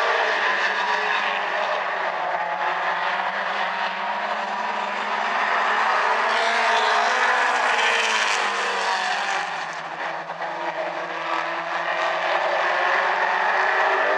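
A pack of mini stock race cars running at speed around an oval, several engine notes layered together. The sound swells and brightens as cars come past about six to nine seconds in, then dips briefly before building again.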